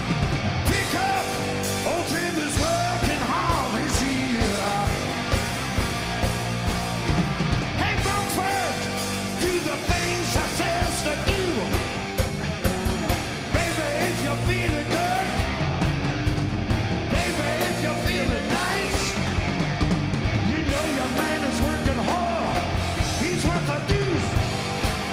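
Hard rock song with a loud, shouted lead vocal over electric guitars and a steady drum beat.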